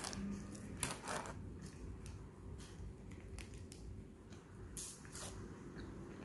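Paper sandwich wrapper crinkling in short, scattered crackles as it is handled, with a bite and close-up chewing of the sandwich.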